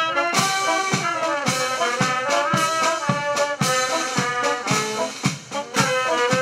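A military brass band playing a march: trumpets and trombones over a steady drum beat of about two strokes a second.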